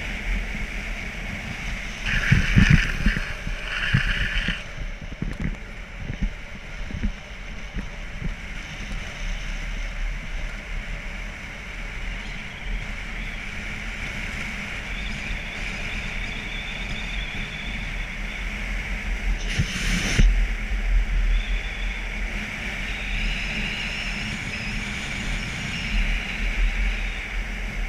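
Steady rush of wind over the microphone and wheels rolling on asphalt during a fast downhill run. A louder scraping burst comes a couple of seconds in, and a brief loud gust of noise comes near twenty seconds.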